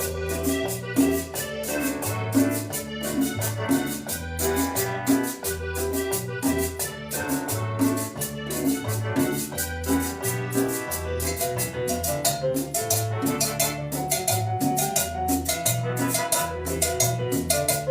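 Latin dance music with a steady percussion beat over a bass line and pitched melody.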